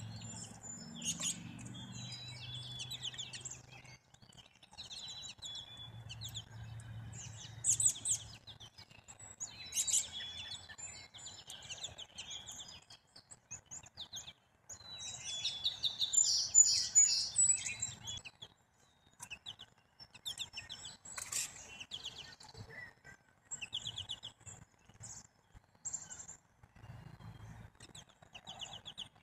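Small songbirds chirping and calling: many short, high calls in quick runs, loudest in a burst about halfway through. A faint low rumble sits underneath for much of the first half.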